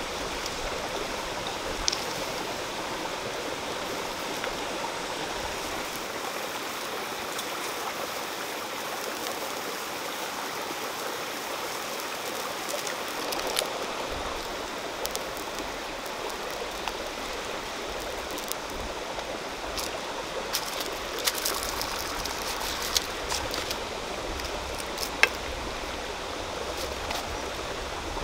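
Steady rushing of running water, like a stream, with scattered faint clicks and taps, more of them in the second half.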